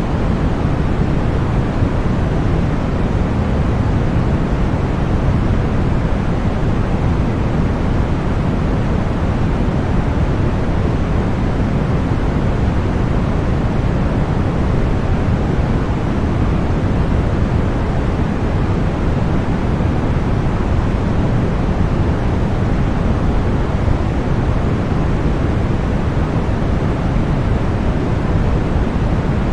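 Continuous synthesized noise, sold as white noise for masking tinnitus: a steady, deep hiss with most of its weight in the low end, fading toward the treble, with no swells or changes.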